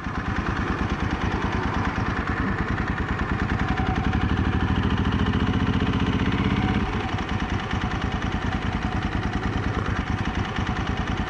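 Motorcycle engine running under way, the firing pulses steady throughout. It pulls harder for a few seconds, the note climbing slightly, then eases off about seven seconds in.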